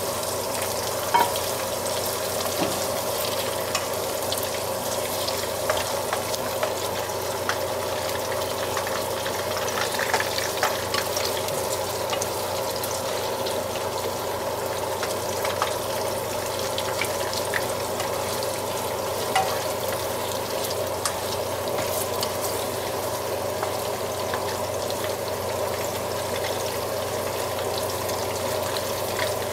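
Chicken meatballs sizzling steadily as they fry in oil in a nonstick frying pan, with scattered clicks and scrapes from a wooden spatula stirring them.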